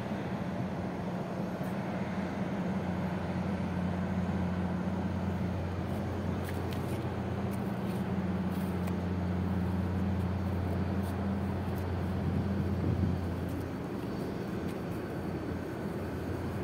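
Ship engines droning low and steady as a container ship is manoeuvred in to berth with a tug, over a steady hiss. The drone eases off about thirteen seconds in.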